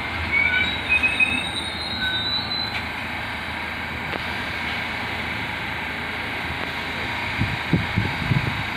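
Subway train running with a steady rumble, its wheels giving short high squeals in the first few seconds; irregular low thumps come in near the end.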